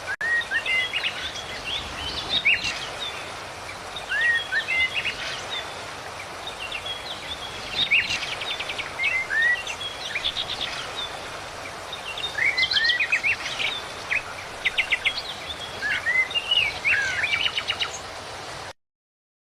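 Birds chirping and singing: repeated short rising chirps and quick high trills over a steady outdoor hiss. The sound cuts off suddenly near the end.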